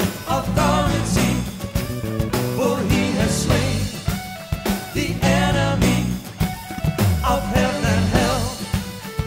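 Praise-and-worship pop-rock song with a steady drum beat and bass under a wavering melodic lead line.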